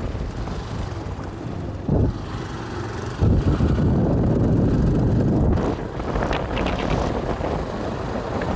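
Motorbike running along a rough dirt trail, with wind buffeting the microphone. There is a jolt about two seconds in, and the noise grows louder for about two seconds from a little after three seconds in.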